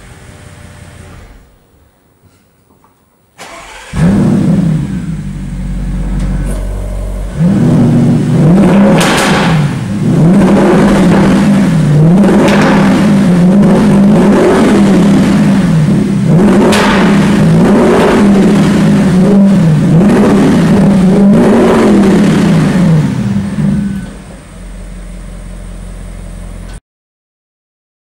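Audi RS6 Avant Performance twin-turbo V8 starting with a sudden loud flare, idling, then revved in short blips, about one every second and a half, before settling back to idle and cutting off abruptly. The sound comes from the sport exhaust in an underground garage.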